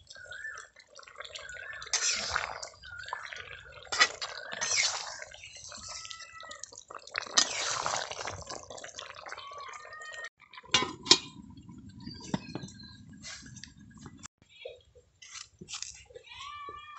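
A steel spoon stirring thick fish curry in a metal karai: wet squelching and sloshing with a few sharp clinks against the pan. About two-thirds of the way through this gives way to a quieter outdoor background with a low rumble and a few high chirps.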